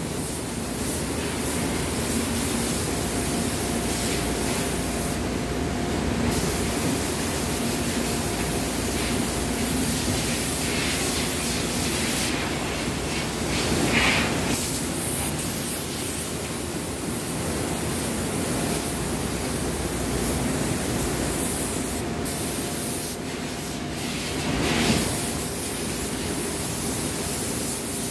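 Compressed-air spray guns hissing steadily as they spray paint onto wooden furniture. The hiss drops briefly a few times as a trigger is let go.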